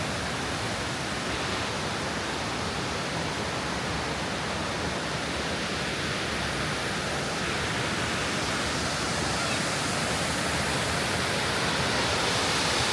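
Waterfall rushing: a steady, even roar of falling water, growing slightly louder near the end.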